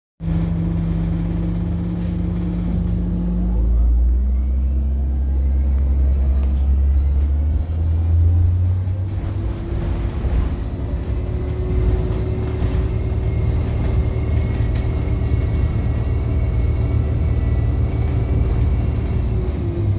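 2007 Orion VII 30-ft transit bus running, heard from inside: a steady engine and drivetrain rumble whose pitch shifts several times in the first eight seconds, then climbs slowly, with a faint high whine joining past the middle.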